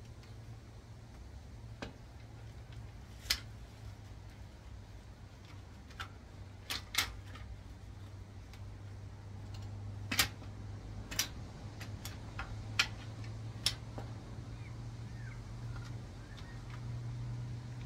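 Scattered sharp clicks and knocks of metal parts and tools being handled during a manual gearbox teardown, a few seconds apart and irregular, over a steady low hum.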